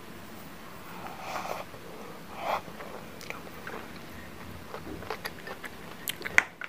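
Close-up eating of noodle soup: two slurps of noodles in the first few seconds, then wet chewing with many small mouth clicks and one sharp click near the end.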